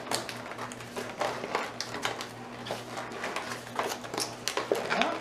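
A small cardboard box being handled and opened by hand: a run of light clicks, taps and scrapes of cardboard flaps and packaging.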